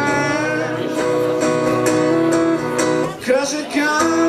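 Acoustic guitar strummed with regular strokes, ringing chords, with a brief drop in loudness about three seconds in.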